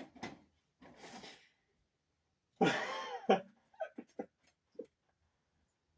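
A person's short non-speech vocal sounds: faint breathy noises, then a louder cough-like vocal sound about two and a half seconds in, followed by a few faint clicks.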